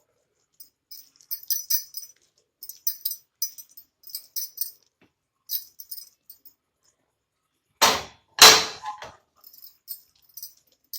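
Metal spoon scraping and clinking against a steel pan and plate while hot coconut burfi mixture is scooped out and spread, in short repeated scrapes. About eight seconds in come two loud clatters close together.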